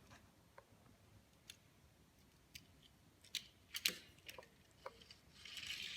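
Scattered light clicks and taps of a small die-cast metal toy car being handled, with a soft rustling hiss near the end.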